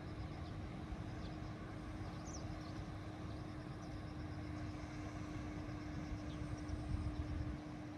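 Outdoor seaside ambience: gusty wind rumbling on the microphone, with a steady low hum throughout and a few faint, short high chirps.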